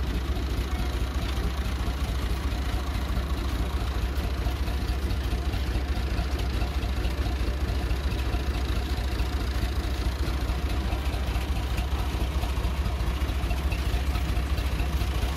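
Tractor engine idling steadily with a low hum, powering the orchard sprayer's pump while rinse water is flushed out of the tank and hose.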